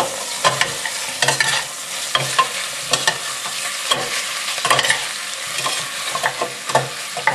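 Beef short ribs sizzling in oil in a stainless steel pot as they are tossed and stirred, with metal slotted spoons scraping and knocking against the pot over and over.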